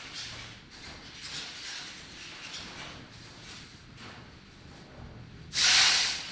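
Sound installation playing soft, uneven swishes of hiss, then a short, much louder burst of hiss about five and a half seconds in.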